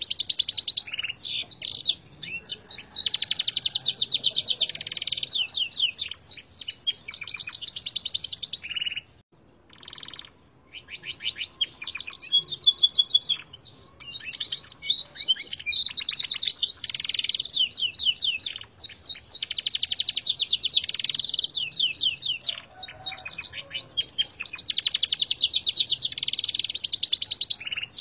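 Gloster canary singing a song tutored on red siskin song: long runs of fast, high trills and rolls, broken by a short pause about nine seconds in before the bird starts up again.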